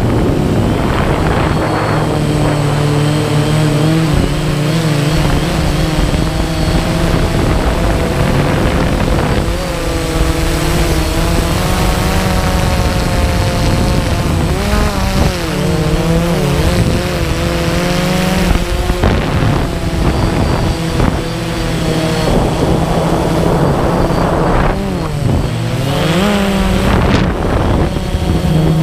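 DJI Phantom quadcopter's motors and propellers whining, heard from the camera mounted on the drone, their pitch sliding up and down now and then as the throttle changes. Wind rushes over the microphone throughout.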